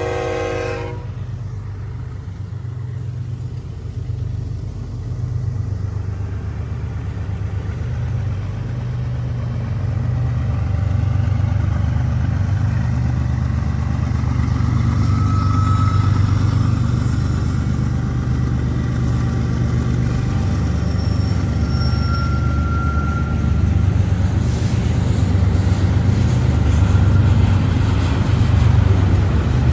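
A train horn blast cuts off about a second in. After it comes the steady low rumble of BNSF diesel-electric locomotives pulling a loaded tank-car train, engines working and cars rolling, growing gradually louder.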